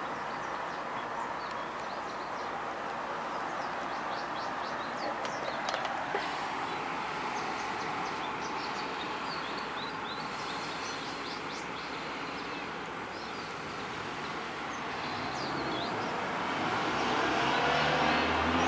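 Small birds chirping in short scattered calls over a steady background hiss. A vehicle engine grows louder over the last few seconds.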